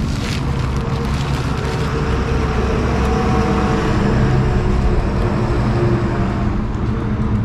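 A motor vehicle's engine running as it passes along the road, swelling to its loudest about four to five seconds in and then easing off.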